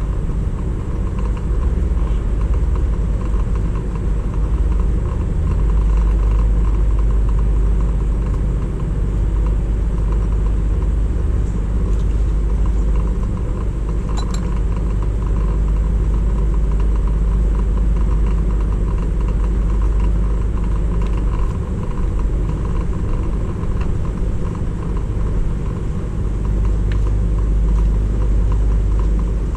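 A motor vehicle running steadily: a continuous low rumble that barely changes in pitch or level, with a few faint ticks.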